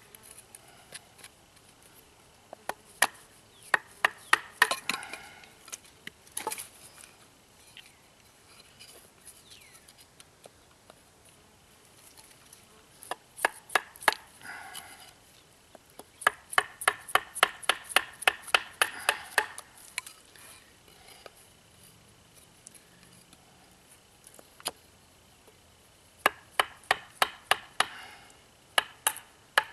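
Knife blade carving a wooden bow-drill spindle, taking off shavings to remove a belly in it: runs of quick, sharp strokes in several bursts with pauses between.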